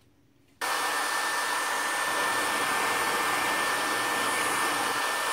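Hair dryer switched on about half a second in, then blowing steadily with a thin steady whine, drying a sheet of freshly coated iron-salt sensitized paper.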